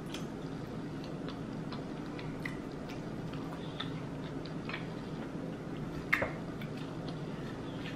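Eating sounds at close range: scattered small wet clicks from chewing, with one sharper click about six seconds in, over a steady low hum.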